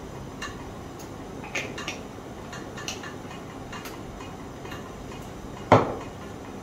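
Small glass jar being handled and capped: scattered light clicks and ticks of glass and screw cap, then one louder knock near the end as the jar is set down on a wooden table.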